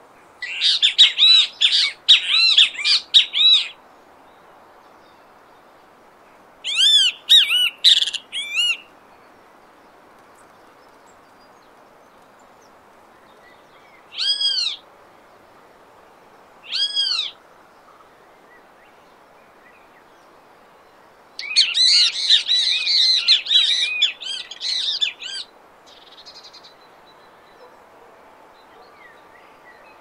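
Great kiskadee calling in loud, ringing, arched notes: a rapid run near the start, another short burst a few seconds later, two single notes in the middle, then a longer, dense chatter near the end.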